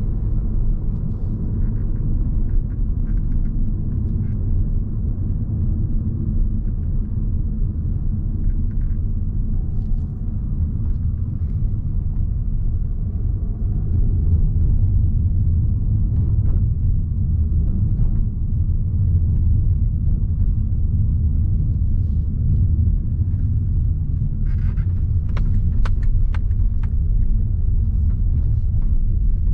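Audi Q3 with a 1.4-litre petrol engine driving over a rough, bumpy track: a steady low rumble of engine and tyres, with a run of short sharp clicks and knocks near the end.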